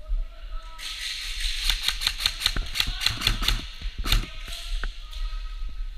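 Airsoft gun firing a rapid string of shots, about six a second, for about three seconds, ending in a louder crack; a few single clicks follow near the end.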